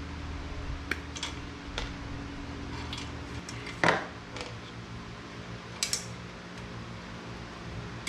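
Small clicks and clinks of hand tools and metal parts being handled while wiring traffic-signal bulb sockets, with one louder clank about four seconds in, over a steady low hum.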